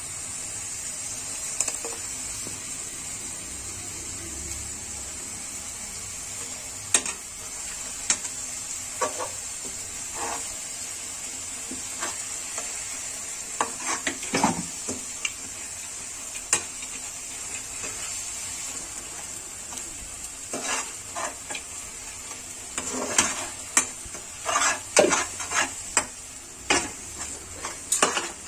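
Mushroom masala sizzling steadily in an aluminium kadai while a perforated metal spoon scrapes and clinks against the pan. The strokes come scattered at first and bunch together in the last several seconds.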